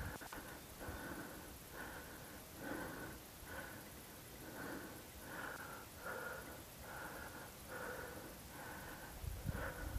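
A person breathing hard and rhythmically close to the microphone, a breath about every two-thirds of a second.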